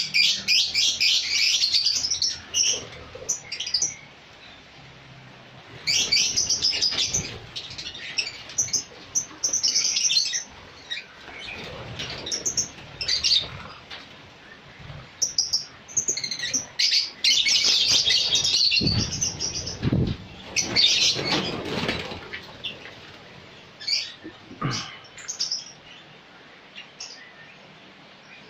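A caged songbird singing in bursts of rapid, high chirps and trills lasting a few seconds each, with short pauses between them.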